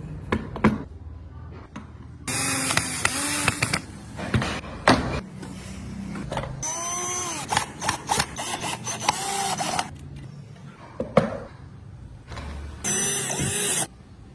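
A handheld power tool working wood in three bursts, about one to three seconds each, its pitch dipping and rising as it bites. Sharp knocks and clicks sound between the bursts.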